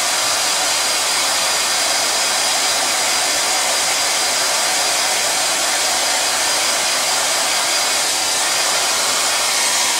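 Handheld hair dryer running on its low-heat setting: a steady blowing hiss with a faint high whine.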